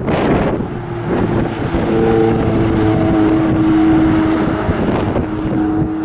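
Ferrari 488 GTB's twin-turbo V8 running at a steady pitch as the car drives away through a corner. Wind buffets the microphone, loudest in a rush right at the start.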